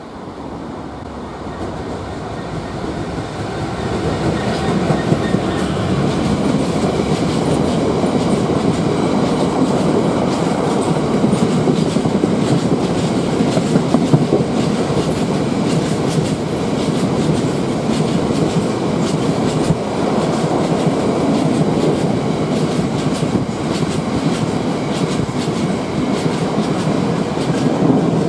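Class 66 diesel freight locomotive with an EMD two-stroke engine, growing louder over the first few seconds as it approaches and passes beneath, then a long train of aggregate hopper wagons rumbling past with steady clickety-clack over the rail joints.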